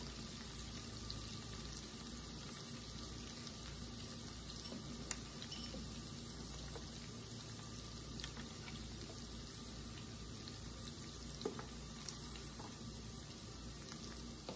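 Faint, steady sizzle of butter and chicken drippings in a cast-iron skillet, with a couple of light clicks along the way.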